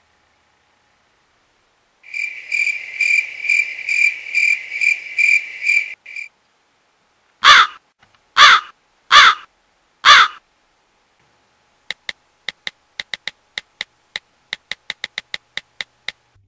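A cricket chirping in a steady pulse for about four seconds, then four loud crow caws about two-thirds of a second apart, then a run of quick, lighter ticks near the end.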